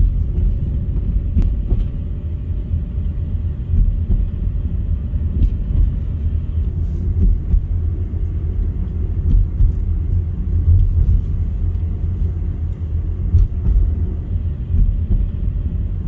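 Steady low road rumble inside the cabin of a 2007 Mazda 3 driving slowly over a residential street, with a few faint knocks.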